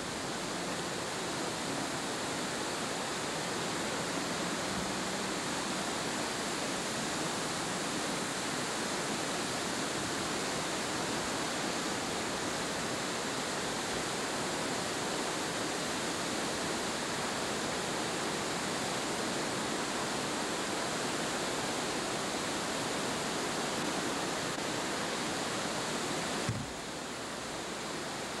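Steady rush of floodwater pouring over a diversion dam spillway at high flow. A click comes near the end, after which the rush is slightly quieter.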